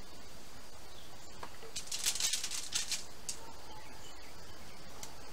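Soft rustling and light scraping as raw burger patties are handled and laid on a smoker's wire racks, loudest in a short flurry about two to three seconds in, over a steady background hiss with a faint high steady tone.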